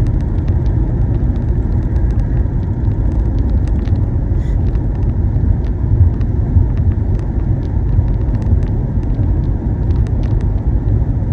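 Car cruising at highway speed, heard from inside the cabin: a steady road and tyre rumble with engine drone, with scattered faint light ticks.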